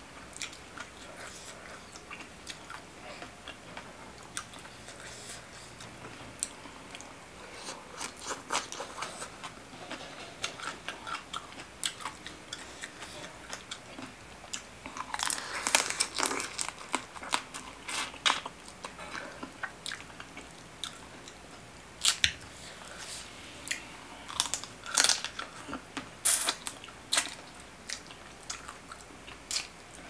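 Close-up eating sounds: chewing, with sharp cracks and crunches as the shell of a raw blue swimming crab is bitten open. The loudest cracking comes in a cluster about halfway through, with a few more single cracks later.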